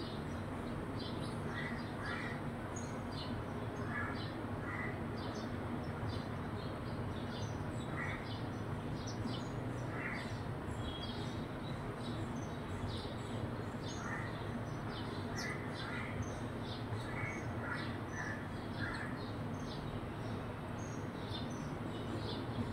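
House sparrows chirping: many short high chirps scattered throughout, with a lower, harsher bird call, often doubled, every few seconds. A steady low rumble runs underneath.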